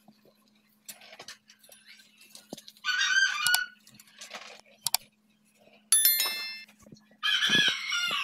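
Chickens calling in short loud bursts, once about three seconds in and again near the end, with a bright bell-like chime about six seconds in and a faint steady hum underneath.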